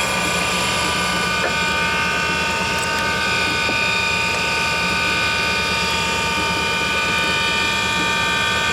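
Valve refacing machine running, its motor and spinning grinding wheel giving a steady whine over a low hum as a shovelhead engine valve is ground.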